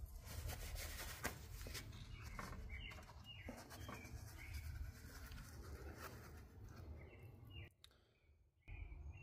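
Faint clicks and scraping of a silver sand casting being lifted out of its sand mold by a gloved hand, over a low steady hum, with short bird chirps every second or two.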